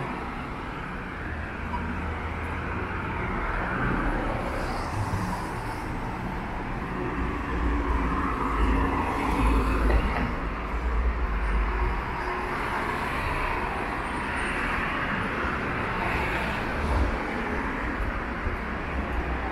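City street ambience: a steady hum of road traffic, with a low vehicle rumble swelling and fading in the middle.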